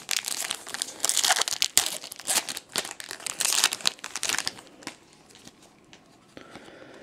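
Foil trading-card pack crackling as it is torn open and crumpled. The crinkling fades to faint handling noise about five seconds in.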